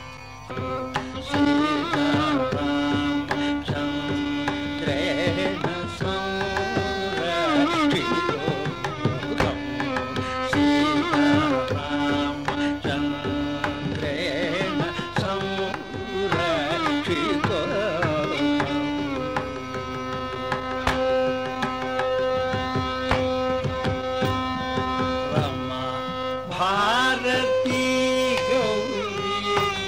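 Carnatic classical concert music: a melody with wavy, sliding ornaments and long held notes on voice and violin, over steady mridangam and khanjira strokes. It begins after a brief lull right at the start.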